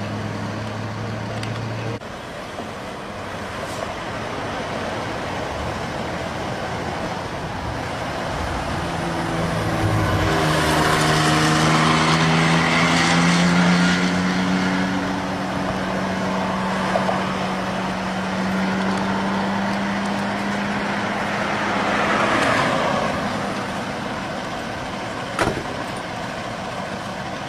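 Road traffic: vehicles driving past the intersection, one heavy vehicle holding a steady engine tone as its road noise swells and fades, and another passing near the end.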